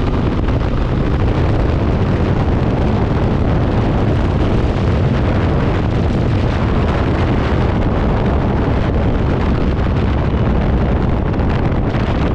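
Steady rush of wind buffeting the microphone of a motorcycle at road speed, with the engine's drone underneath.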